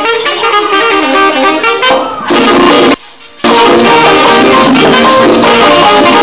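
Live band music: saxophones playing a melody over drums and shakers. About three seconds in, the sound cuts out for about half a second, then the music comes back at full level.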